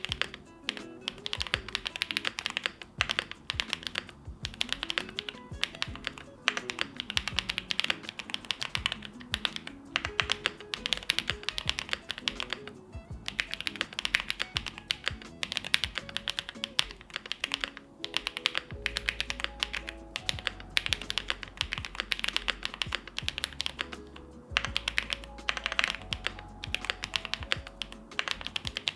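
Continuous fast typing on an Owlab Jelly Epoch mechanical keyboard with lubed White Jade switches, a polycarbonate plate, foam dampening and GMK Dandy keycaps: a steady stream of keystroke clacks. Background music plays underneath, and a deep bass comes in about 19 seconds in.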